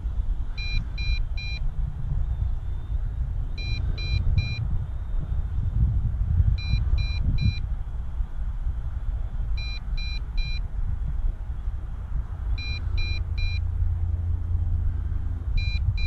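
Drone remote controller beeping a low-battery warning: three short beeps repeated about every three seconds. The beeps sit over a steady low rumble.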